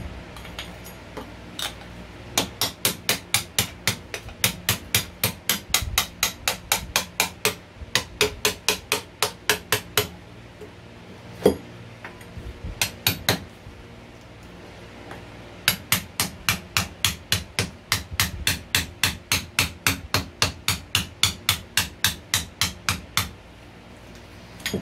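Hand hammer blows struck in quick, even runs of about three to four a second, two long runs with a few single blows between them.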